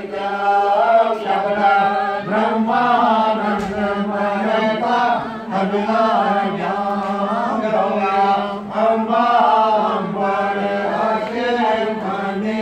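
Voices chanting Hindu ritual mantras in a continuous, melodic recitation.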